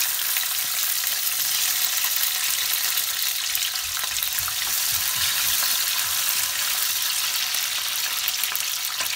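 Green bell pepper (capsicum) strips sizzling in hot oil in a kadhai, a steady frying hiss, with the strips turned now and then by a wooden spatula.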